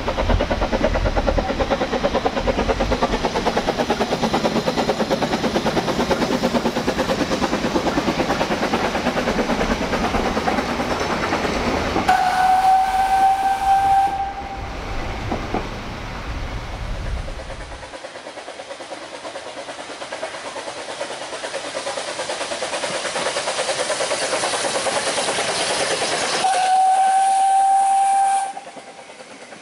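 Narrow-gauge steam train passing, with a steady rush of steam and running noise, and its steam whistle sounding two long single-note blasts, one about halfway through and one near the end.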